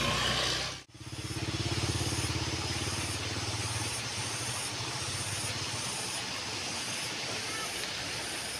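A motor engine hum that fades away over the first few seconds, over a steady outdoor hiss.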